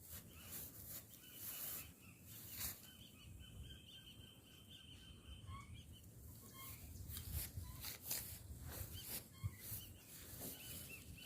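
Faint birdsong outdoors: thin high whistled notes and chirps, a longer warbling run in the first half and more chirps near the end, over a low background rumble with scattered faint clicks.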